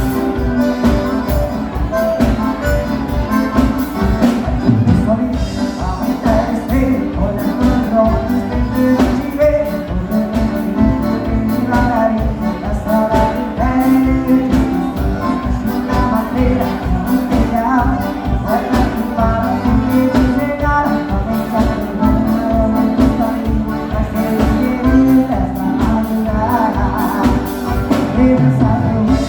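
Live gaúcho dance-band music led by an accordion, with a steady, fast beat and singing.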